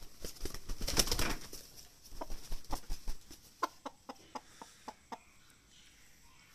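Chicken flapping its wings in a short noisy flurry about a second in, followed by a run of short sharp sounds, about three or four a second, fading out near the end.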